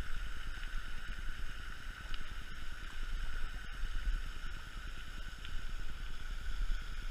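Steady outdoor background noise: a low rumble with a constant high-pitched drone over it.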